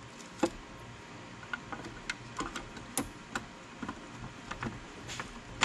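Irregular light clicks and taps of a 3D-printed plastic airbox lid piece knocking against the airbox and engine-bay plastics as it is pushed into place by hand, the loudest click right at the end.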